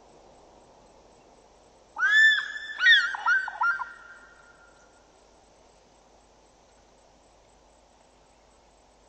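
African fish eagle giving its ringing call: one long arched note, then four quicker, shorter notes, about two seconds in and fading out within two seconds.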